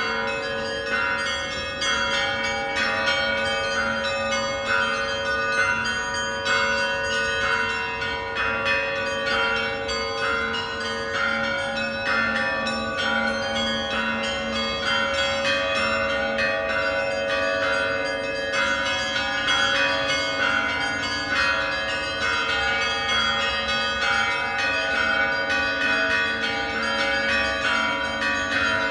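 Church bells ringing in a continuous, quick peal, many bells of different pitches struck over and over, with lower bells humming beneath the rapid strokes of the smaller ones.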